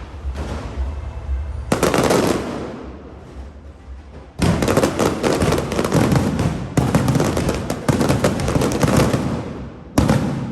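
Aerial fireworks shells bursting overhead: a loud burst about two seconds in, then from about four seconds a long run of rapid crackling, with another sharp burst near the end.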